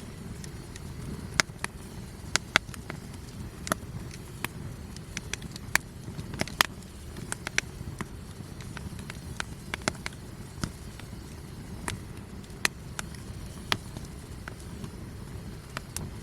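Wood campfire crackling, with sharp irregular pops and snaps over a steady low rumble.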